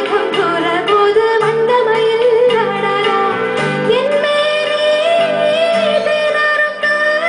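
A woman singing a melody into a microphone, with ornamented turns and a long held note in the second half, over live instrumental accompaniment with keyboard.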